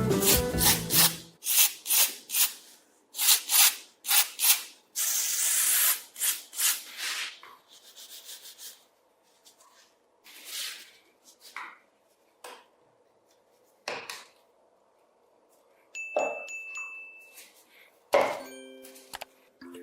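Quick rubbing and scraping strokes on the rusted shears, a dozen or so in the first seven seconds with one longer stroke among them, then sparser, fainter handling sounds.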